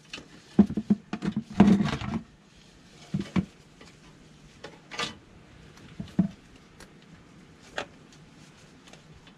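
Clicks, knocks and light rattles of hands handling a car's transmission oil cooler and pushing its pump's electrical connector back on, with a busy run of knocks in the first two seconds, then single knocks every second or so.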